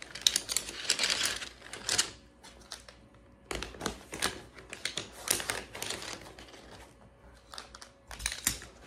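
Fabric rustling and the cot's frame elbows and poles clicking and rattling as a folded ultralight backpacking cot is rolled up by hand: a dense rustle for the first two seconds, then scattered clicks and rustles.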